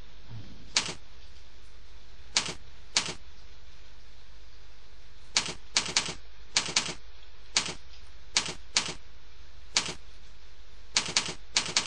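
Computer keyboard keystrokes: about sixteen separate key clicks, unevenly spaced and sometimes in quick runs, over a steady background hiss.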